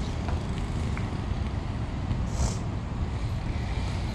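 Steady rumble of road traffic, with a brief high hiss about two and a half seconds in.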